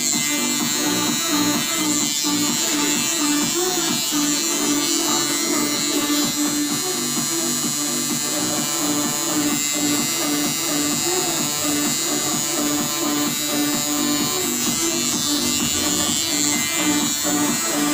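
Electric tattoo machine buzzing steadily as it runs a liner needle through EVA foam practice sheet.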